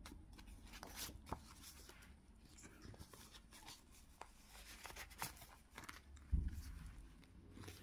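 Faint rustling and light clicks of a cash-envelope budget binder being handled, its plastic zip-envelope pages turned over, with one soft thump about six seconds in.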